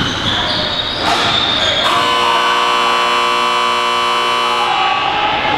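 Arena buzzer sounding once, a single steady blare lasting about three seconds, starting about two seconds in.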